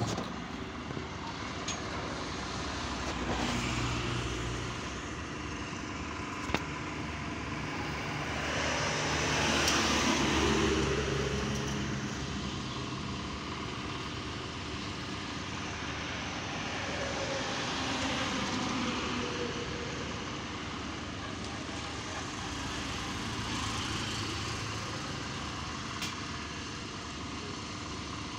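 Street traffic: motor vehicles passing one after another over a steady background, each rising and fading, the loudest about ten seconds in. A single sharp click comes about six and a half seconds in.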